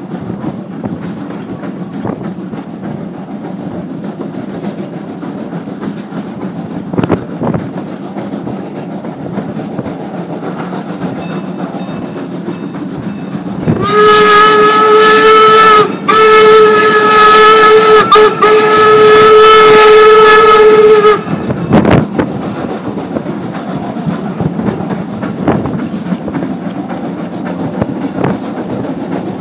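Steam locomotive whistle, Strasburg Rail Road #90's, blowing three long blasts with barely a break between them, from about halfway through for around seven seconds. Underneath, the steady rumble and clatter of the passenger coach rolling on the rails.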